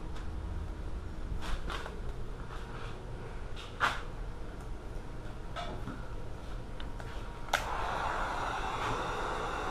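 Clicks and knocks of a heat gun and its cord being handled, then a click about seven and a half seconds in as the handheld heat gun switches on, and its fan blows with a steady, even hiss.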